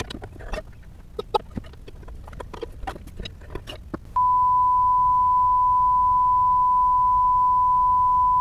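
Scattered clicks and knocks of metal parts being worked by hand, then, about four seconds in, a steady 1 kHz censor beep that holds for about four seconds and is the loudest sound, covering a curse.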